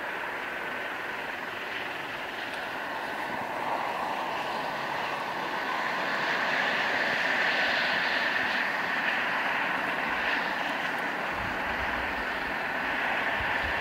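Eurocopter EC135 helicopter running on the ground: its twin turboshaft engines give a steady high whine over an even rushing noise of rotor and exhaust.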